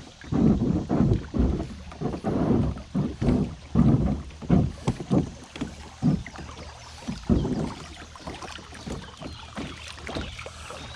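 Kayak paddle strokes in river water, uneven and about one or two a second, easing off after about seven seconds into quieter water noise.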